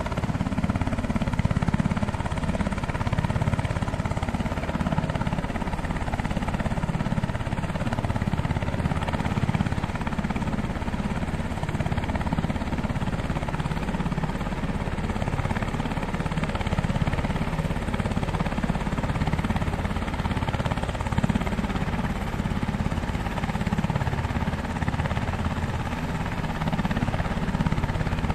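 Sikorsky UH-60 Black Hawk helicopters running, with the steady beat of the main rotors and the noise of their twin turboshaft engines, loud and continuous as one helicopter flies in low and descends to land.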